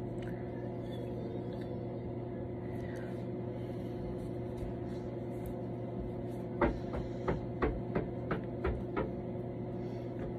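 A steady low hum runs throughout. About six and a half seconds in, a run of short soft clicks begins, two or three a second, as a cotton pad soaked in micellar water is wiped and pressed across the lips to remove lipstick.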